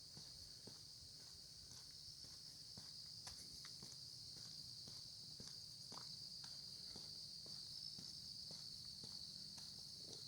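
A steady, high-pitched chorus of insects singing without a break, with footsteps of someone walking at an even pace, about two steps a second, on the lane.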